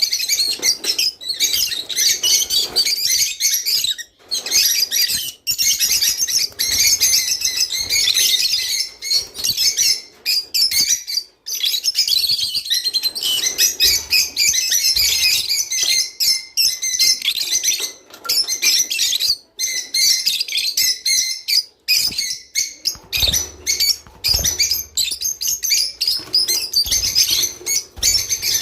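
A flock of lovebirds chirping and chattering continuously, many shrill overlapping calls: breeding-season calling of the kind played to pet birds to encourage them to mate.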